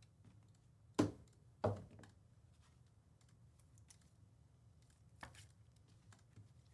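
Typing on a computer keyboard: faint scattered key clicks, with two louder clicks about a second in and a short burst of clicks past the five-second mark.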